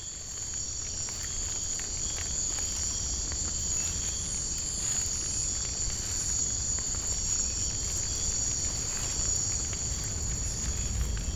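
A steady chorus of night insects, a continuous high trilling that does not let up, over a low rumble.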